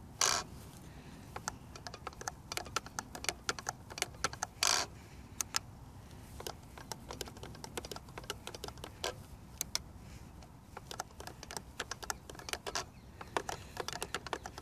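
Irregular, rapid plastic clicking from a Hubsan X4 Pro (H109S) radio transmitter's joysticks and switches being worked by hand during stick calibration. There are two louder short scuffs, one just at the start and one about four and a half seconds in.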